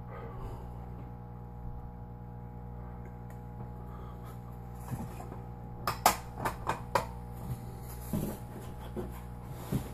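Light knocks and taps as gloved hands handle a rolled sheet of pasta dough on a table, a quick run of them about six seconds in and a few more near the end, over a steady electrical hum.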